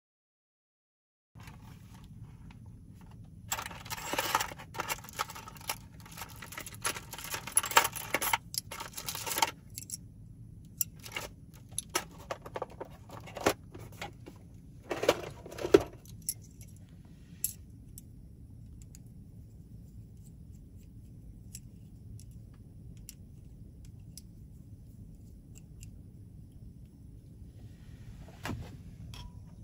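Metal chopsticks rattling and clinking inside a plastic cutlery case as it is handled and opened: dense jangling for about six seconds, then separate clicks and taps. After that only a faint, low, steady hum remains.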